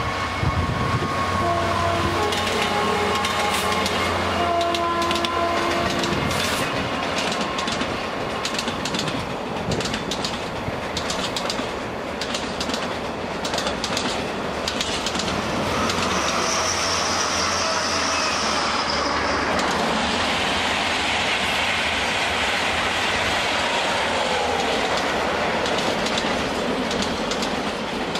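Class 66 diesel locomotive hauling a container freight train past, then a long rake of container wagons rolling by with the clickety-clack of wheels over rail joints. Steady whining tones for the first few seconds, and a brief high wheel squeal about two-thirds of the way through.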